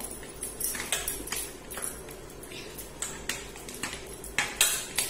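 Metal spoon clinking and scraping against a cooking pan of peda mixture. The clicks are irregular, one every half second or so, with the loudest pair a little before the end.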